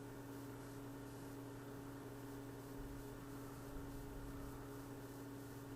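Faint steady electrical hum with light hiss: room tone with no hand or tool sounds.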